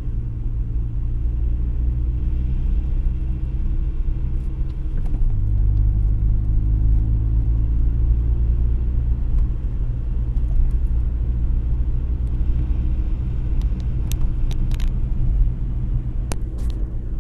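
Audi A3 1.8T turbocharged four-cylinder heard from inside the cabin while driving: a steady low engine drone with road rumble, the engine note rising about five seconds in, and a few sharp clicks near the end. The owner thinks something on the car is broken because of a strange rattle around 1900 rpm.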